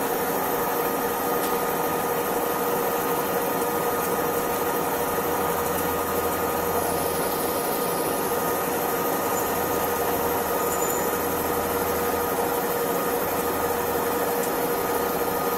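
Lathe turning a roller shaft, the tool taking a cut of about 1 to 1.5 mm per pass: a steady mechanical running noise with a steady whine.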